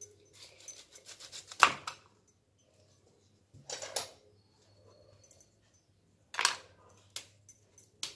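Knife cutting through the crisp leaves and stalk of a fresh cauliflower on a wooden board: a run of crackling crunches with a loud snap just under two seconds in, more crunches about four and six and a half seconds in, then a few light clicks near the end.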